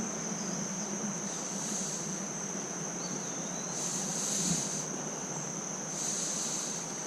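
Creek water flowing as a steady rush, with a constant high-pitched insect whine and three short, louder high buzzes of about a second each.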